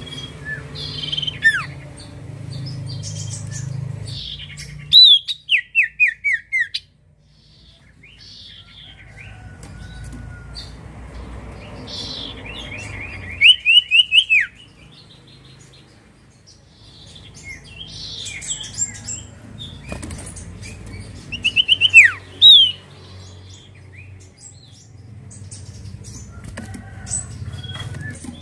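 Common iora (cipoh) calling: three bursts of quick, short whistled notes, each falling in pitch, with the bursts spaced several seconds apart. Softer chirps and a low hum run beneath them.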